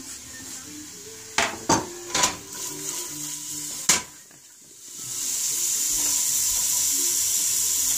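A few sharp taps and knocks as diced carrots, celery and onion are tipped off a cutting board into a stainless steel stockpot, then the vegetables sizzling steadily in hot oil from about five seconds in, the sauté base for a soup.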